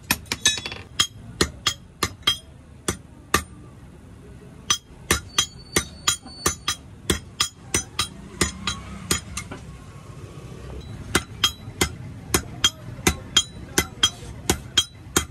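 Hand hammer striking an iron piece on a steel block anvil: sharp metallic blows with a bright ring, about two or three a second. There are short pauses about four and ten seconds in, and a quick flurry of lighter taps near the start.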